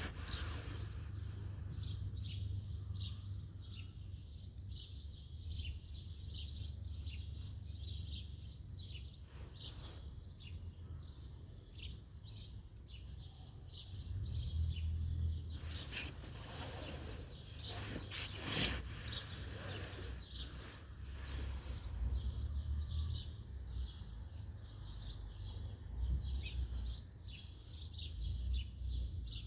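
Small birds chirping in quick, repeated short notes over a steady low background rumble, with a couple of louder rustling noises about halfway through.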